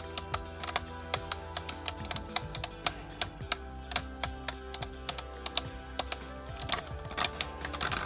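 Spinning Beyblade tops, one of them 3D-printed, clashing in a stadium: sharp, irregular clacks of hard parts striking each other several times a second, with a tighter cluster of louder hits near the end. Background music with held tones runs underneath.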